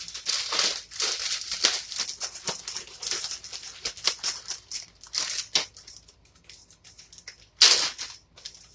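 A bag crinkling and rustling in irregular bursts as chicken pieces are tossed in seasoned flour to coat them, with one louder rustle near the end.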